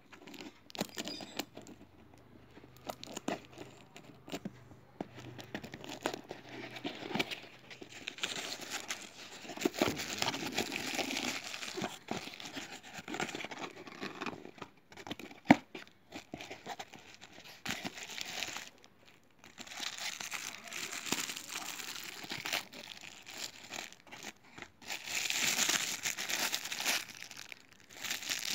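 Packaging being unwrapped by hand: irregular crinkling, crackling and tearing, busiest about a third of the way in and again near the end, with one sharp knock about halfway through.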